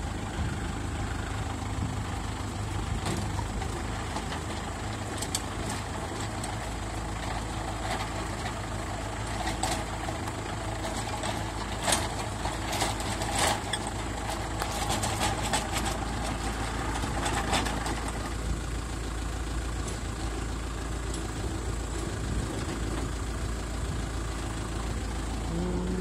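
Mini tractor engine running steadily while driving a post-hole digger auger into the soil. A run of sharp clicks and scrapes comes from about ten to eighteen seconds in as the auger bores.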